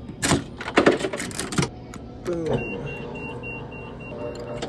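Pressed-penny souvenir machine: the coin slide is pushed in with a clatter of metal clicks, then about two seconds in its electric motor starts, winding down to a steady hum as the rollers turn and press the penny, with a faint ticking about five times a second.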